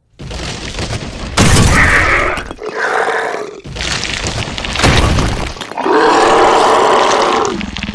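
Monster-movie sound effects for a giant worm creature bursting out of the ground. The ground rumbles and breaks with two loud crashes, about a second and a half in and again near five seconds, and the creature roars several times, the longest call near the end.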